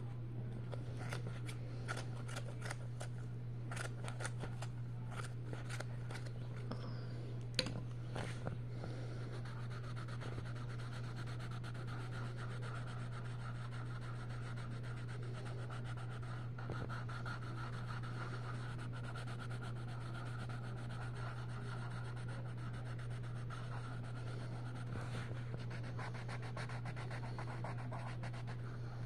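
Coloured pencil scratching and rubbing on coloring-book paper in quick short strokes, busiest in the first eight seconds or so, over a steady low hum.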